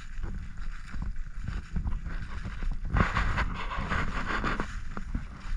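Wind buffeting the microphone over footsteps and rustling through dry grass, with a louder crackly rustle from about three to four and a half seconds in.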